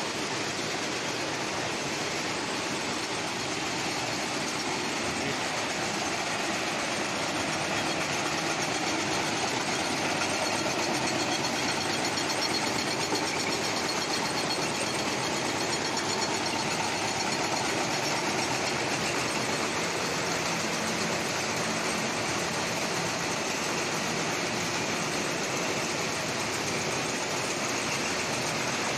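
Chili washing, chopping and sorting machinery running with a steady, even mechanical noise.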